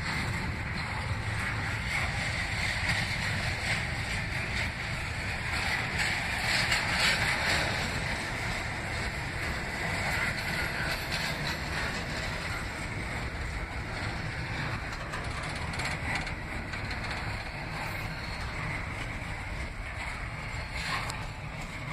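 Double-stack intermodal freight train rolling past: steady rumble and clatter of steel wheels on the rails. The noise swells briefly about six to eight seconds in.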